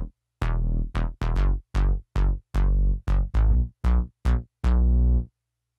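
Synth bass line through a sidechained noise gate keyed by a second, higher bass part. It plays short notes with deep low end, each cut off into silence between phrases by the closing gate, with a short fade rather than a blocky chop. The result is a tighter, more solid low end.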